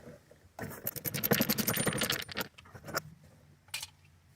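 Rapid clicking and scraping of hard plastic, about two seconds long, followed by a couple of short scrapes, as the minivan's inner door trim panel is worked loose and handled.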